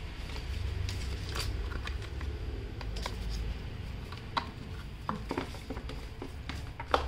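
Paperboard packaging of an Apple Pencil box being handled and pulled apart: scattered rustles, scrapes and light taps, with a sharper click near the end.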